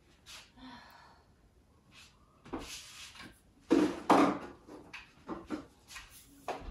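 Household objects being handled and moved about: a string of short knocks, clatters and rustles, with the loudest pair about halfway through.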